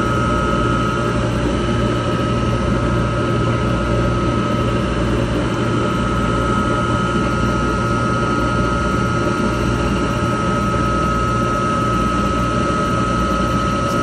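Commercial desiccant dehumidifier running, its reactivation burner firing and its air motors going: a steady machine noise with a constant high tone over a low hum.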